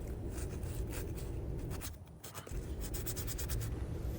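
An oiled Scotch-Brite pad scrubbing a rusty metal kicker part: a run of quick scratchy rubbing strokes that pauses briefly about two seconds in.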